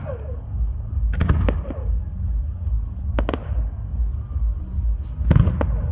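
Fireworks shells bursting with sharp bangs in small clusters: a few about a second in, a pair near the middle and two more near the end. A steady low rumble runs underneath.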